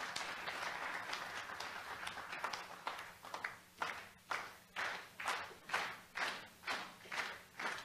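Audience applause: a dense patter of many hands at first, which about three seconds in thins into steady rhythmic clapping at about two claps a second.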